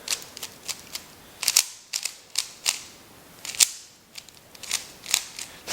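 Plastic speed cube being turned quickly by hand: a run of sharp, irregular clacks as the layers snap into place, some coming in quick pairs.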